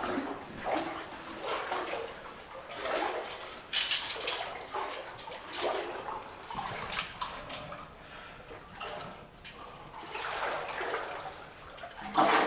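Boots wading through water in a flooded mine passage: a splash and slosh at each step, at an uneven pace of about one step a second.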